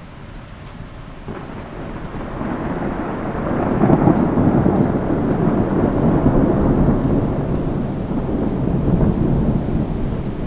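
Rolling thunder: a low rumble that swells over the first few seconds, is loudest about four seconds in, rolls on, and slowly eases toward the end.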